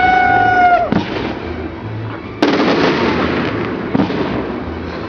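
Fireworks: a whistling firework's steady shrill whistle bends down and stops just under a second in, over a background of crackling. A loud bang comes about two and a half seconds in and trails off in crackle, and a smaller bang follows about four seconds in.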